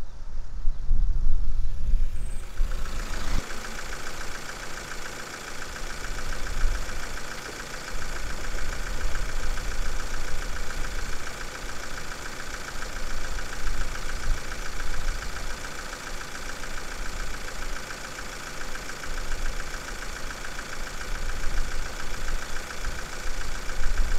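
Level-crossing electronic warning bell sounding a rapid, steady ringing that starts abruptly about two seconds in. Underneath is a low rumble that is loudest in the first two seconds.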